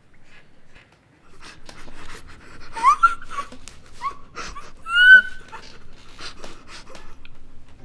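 A person panting in quick, ragged breaths, broken by three short high whimpers about a second apart, the loudest about five seconds in.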